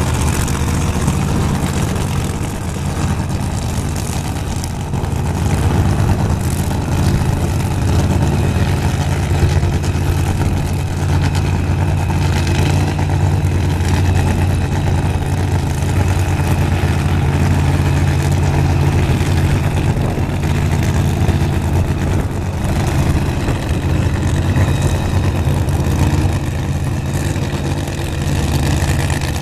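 Supercharged Pro Modified drag-racing engines idling steadily at low rpm with a loud, low rumble.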